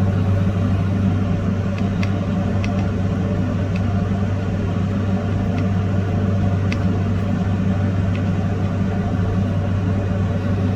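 A steady, low electric hum from a running machine, with a few faint clicks scattered through it.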